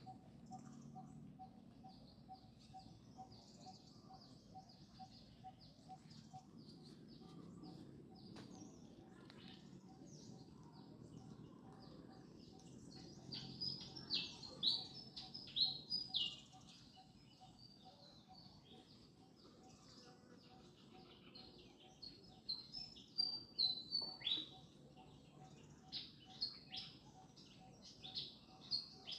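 Small birds chirping: many short, high, falling chirps, coming in quick clusters about halfway through and again near the end.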